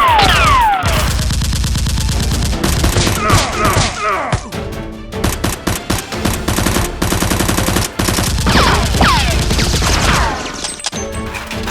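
Rapid bursts of automatic gunfire sound effects over background music, with falling whistling tones at the start and again near the end.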